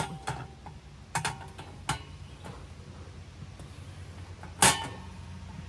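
Metal grill plate of a Coleman RoadTrip Party grill being fitted onto the grill bowl: a few light metallic clinks, then one louder ringing clank near the end, over a steady low hum.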